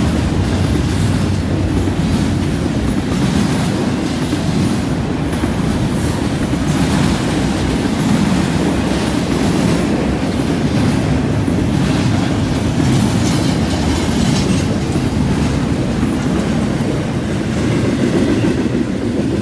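Double-stack intermodal well cars of a freight train rolling past close by: a steady loud rumble with wheels clattering over the rail joints.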